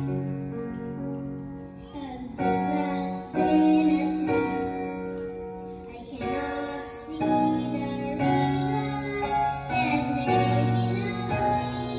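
A young boy singing a slow ballad into a handheld microphone over held accompaniment chords. His sung phrases start about two seconds in and pause briefly near the middle before going on.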